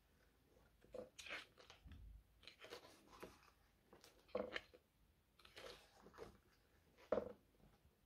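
Faint page-turning: the thick, glossy pages of a hardcover photobook being turned and flattened by hand, a handful of soft paper swishes and rustles, the sharpest about four and seven seconds in.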